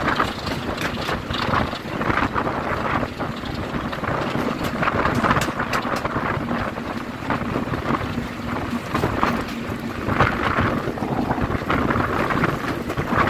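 Class 33 diesel locomotive's Sulzer eight-cylinder engine running as the locomotive travels along the line, with wind gusting over the microphone.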